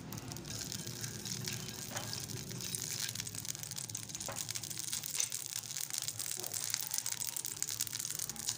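Thin layer of oil heating in a nonstick frying pan, crackling and sizzling lightly, getting livelier after a few seconds, over a steady low hum.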